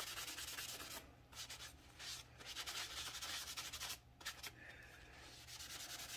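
Paper towel wiping stain onto a small piece of Baltic birch plywood: a faint dry hiss of quick back-and-forth rubbing strokes, stopping briefly about a second in and again about four seconds in.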